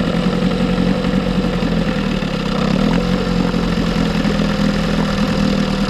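1976 Johnson 6 hp two-stroke outboard motor running steadily, freshly started, with its low-speed idle needle set one and a half turns out to see whether it will now hold an idle.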